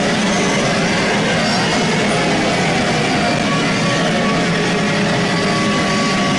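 Loud, dense layered sound effect: a steady wall of noise with many overlapping sliding tones and a constant low hum, unchanging throughout.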